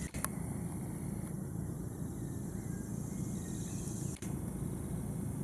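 Forest ambience: insects buzzing steadily at a high pitch over a low, steady rumble, with two brief dropouts in the sound, one just after the start and one about four seconds in.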